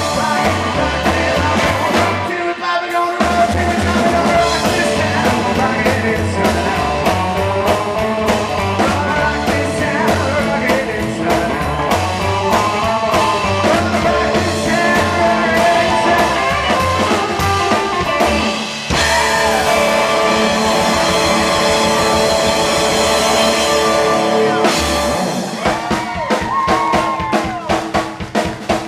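Live rockabilly band playing with electric guitar, drum kit and a singing voice. The drums break into separate hits near the end.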